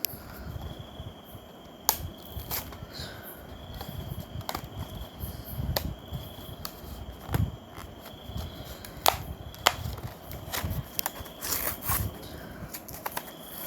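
Hands working at a toy's packaging, trying to get it open: scattered sharp clicks and taps with handling rustles.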